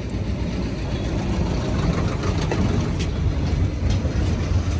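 A motor vehicle's engine running steadily with a low rumble, with a few faint clicks over it.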